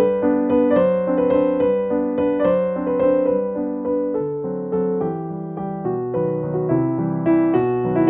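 Background piano music: a gentle melody of notes and chords played in an even flow.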